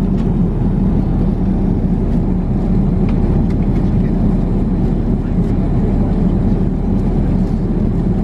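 Steady cabin noise of an Airbus A380 airliner in cruise: a constant rush of airflow and engine drone, with a few faint light clicks.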